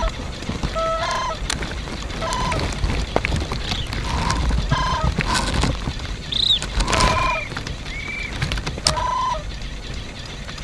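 Goose and crane calling: short honking calls, some with a rolling trill, come at intervals and bunch up most thickly a little past the middle, with a few higher whistled notes there.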